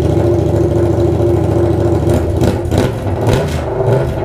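Yamaha MT-07's 689 cc parallel-twin engine running with no silencer, exhausting straight out of the bare header pipe: loud and unmuffled.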